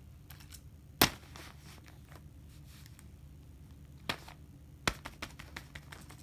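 Sharp clicks and taps of plastic fidget toys being handled and set down on a paper sheet: one loud click about a second in, two more around four and five seconds, then a run of lighter ticks near the end.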